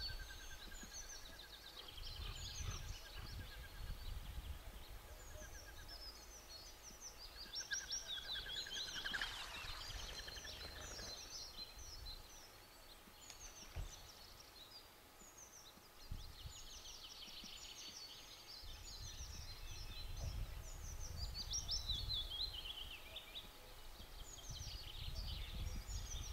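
Several small songbirds singing in the background, with repeated high chirps and fast trills, over a low wind rumble on the microphone. About nine seconds in there is a brief rush of noise.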